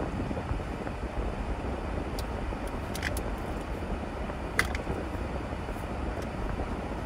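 A car driving, with a steady low rumble of engine and road noise and a couple of small sharp clicks about three and four and a half seconds in.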